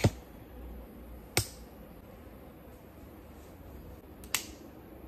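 Three sharp clicks over a faint steady room hum: one at the start, one about a second and a half later, and one about three seconds after that.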